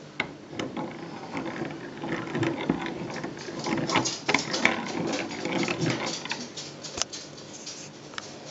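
Singer 28K/128K hand crank mechanism being turned by its handle: the gears whir with a run of metallic clicks and clatter. The clicks are busiest in the middle and ease off toward the end.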